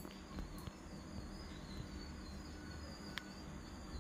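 Quiet background with a faint, high chirping repeated in a steady rhythm, and one sharp click about three seconds in.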